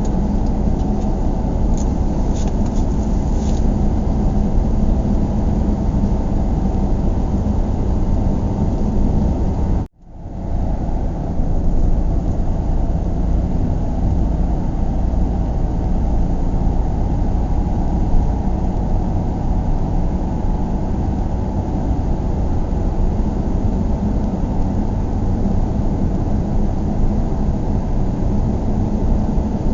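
Steady low rumble of a car driving, road and engine noise heard from inside the cabin. About ten seconds in it cuts out abruptly and fades back up within a second or two.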